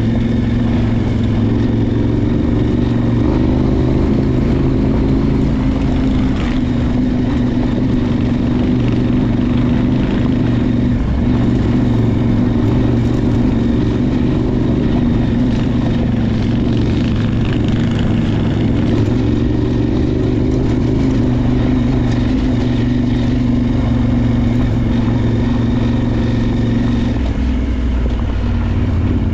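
Adventure motorcycle's parallel-twin engine running steadily while riding, with wind and tyre noise; the engine note changes slightly near the end.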